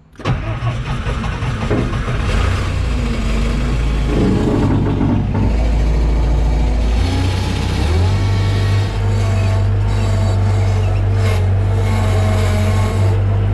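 Bobcat skid steer's engine running, with a sudden start just after the beginning; about seven seconds in the engine speeds up and then holds a steady, higher hum.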